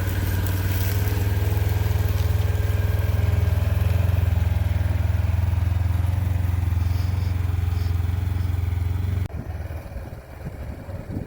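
A vehicle engine running steadily with a deep, even hum. It cuts off abruptly about nine seconds in, and quieter, uneven sound follows.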